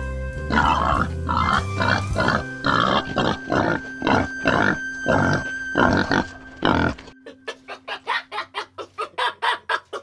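Wild boar grunting over and over, one short grunt about every half second, with background music under it. After about seven seconds the grunts give way to a quicker, fainter run of short sounds.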